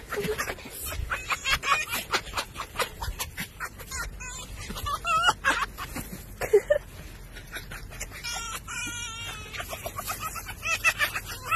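Red foxes cackling ("laughing") in rapid chattering runs of short calls while being petted, with a higher bending whine in the middle and wavering trills a little later.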